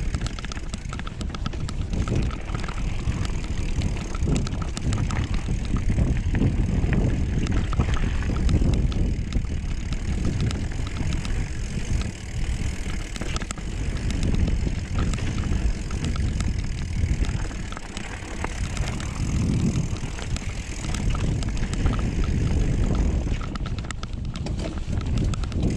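Mountain bike descending a dirt trail: wind rushing over the microphone, tyres rolling and the bike rattling over bumps.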